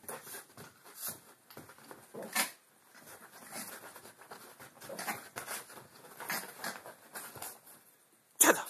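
Yorkshire terrier scrabbling about on a mattress: irregular scratching and rustling of its paws on the quilted cover, with a sharper, louder sound about two and a half seconds in and another near the end.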